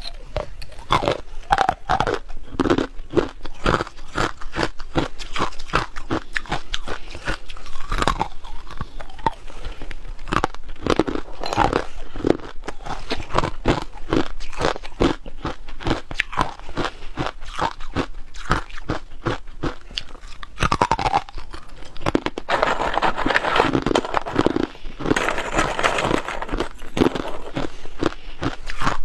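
Ice being bitten and chewed close to the microphone: a rapid, irregular run of crunches. About two-thirds of the way through the crunching thickens into a denser grinding stretch for several seconds.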